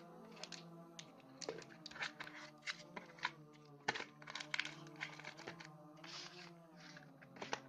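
Hands handling a cardboard phone box and its accessories: many quick clicks, taps and rustles of card and plastic, over steady background music.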